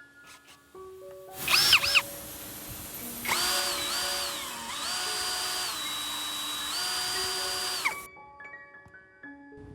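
Electric power tool motor, blipped twice briefly, then run for about five seconds with its whine dropping and rising as the speed changes before it cuts off. Background music with mallet-like notes plays throughout.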